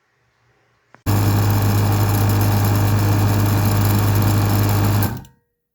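Small electric truck air horn compressor running steadily with a strong low hum, starting about a second in and stopping about four seconds later as it shuts itself off on reaching pressure, winding down briefly.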